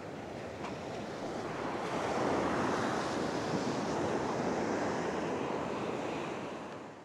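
Surf breaking on a beach: a steady wash of waves with wind on the microphone. It swells about two seconds in and fades out at the end.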